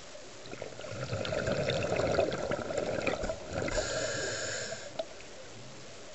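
Scuba breathing through a regulator: about three seconds of exhaled bubbles gurgling out, then a hiss of about a second as the diver breathes in.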